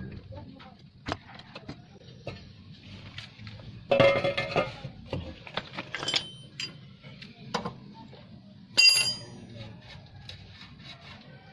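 Metal-on-metal clinks from tools and steel steering parts while a Suzuki Multicab's tie rod end is worked loose. Two loud ringing clinks come about four and nine seconds in, among lighter clicks and taps.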